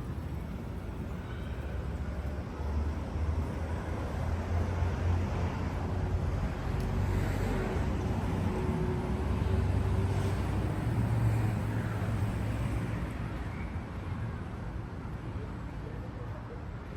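A motor vehicle drives past on a city street, its low engine rumble swelling over several seconds and fading again, over steady street traffic noise.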